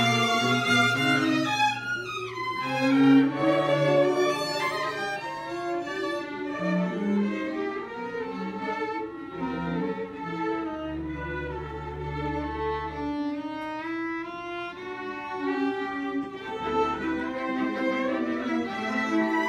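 A chamber string ensemble playing, violins over cello and double bass, with a low bass note held for a few seconds about halfway through.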